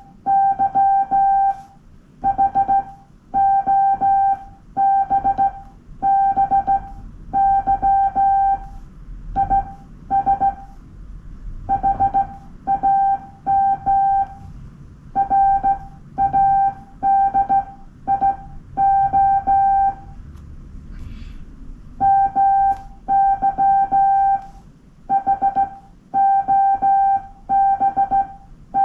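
Morse code sidetone keyed by hand on a straight key: a single steady high-pitched beep switched on and off in dots and dashes, grouped into characters and words with short gaps, and a longer pause about two-thirds of the way through.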